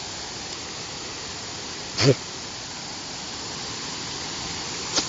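Steady rush of water spilling over the mill creek's dam, slowly growing louder. A man's short vocal sound about two seconds in, and a click near the end.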